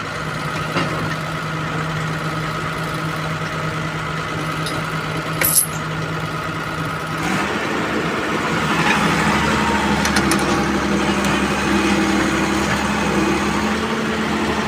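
Excavator diesel engine running steadily at a low speed, then picking up speed and working harder about seven seconds in, with a sharp metallic click a little before.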